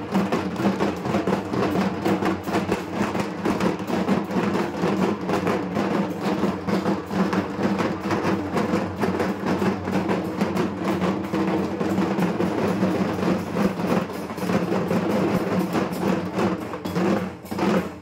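Several dhaks, the large double-headed Bengali barrel drums, beaten together by a group of drummers in a dense, continuous rhythm of rapid strokes.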